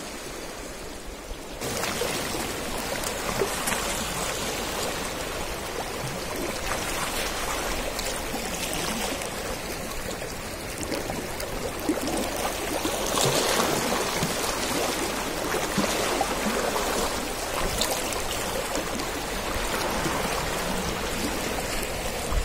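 Shallow seawater washing and trickling around shoreline rocks, a steady rushing sound that steps up a little about a second and a half in.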